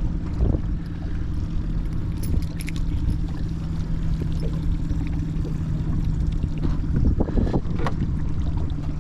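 A boat motor running steadily at trolling speed, a constant low hum, with a low rumble of wind and water underneath. A few faint ticks come about two and a half seconds in, and a brief louder stir of handling noise comes about seven seconds in.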